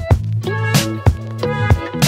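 Background music with a steady bass line and drum hits.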